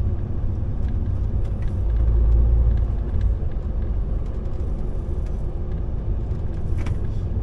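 Lorry's engine and road noise heard from inside the cab while driving, a steady low rumble that swells louder briefly about two seconds in.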